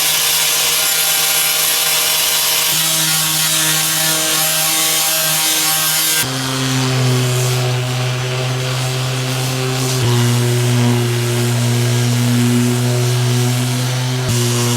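A power tool running steadily, a motor hum over a harsh hiss, with its pitch jumping at abrupt cuts about six, ten and fourteen seconds in.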